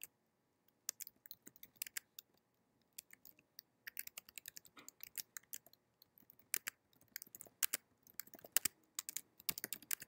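Typing on a computer keyboard: quick, irregular key clicks in runs with short pauses between them.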